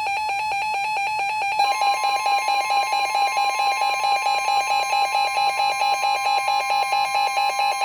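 Weather radio alert alarm: a rapid, evenly pulsing beep, joined about a second and a half in by NOAA Weather Radio's steady 1050 Hz warning alarm tone. It marks the start of a severe thunderstorm warning broadcast.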